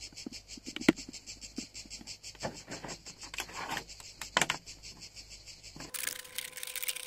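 Insects chirping steadily in a fast even rhythm, with scattered sharp clicks and crinkles of a large empty plastic water bottle being handled. Near the end, about a second of hiss with a steady hum.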